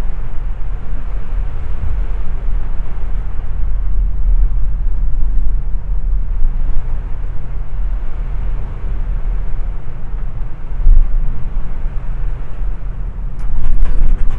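Steady low rumble of a boat under way at sea: engine drone mixed with the rush of water and wind, swelling briefly louder near the end.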